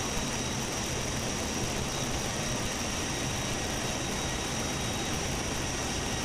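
Cabin noise of a C-17 Globemaster in flight: its four turbofan engines running and air rushing past the open paratroop door, heard from inside the cargo hold as a steady, even roar with a constant high whine over it.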